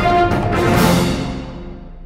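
News channel ident theme music ending on a final swell just under a second in, which then dies away.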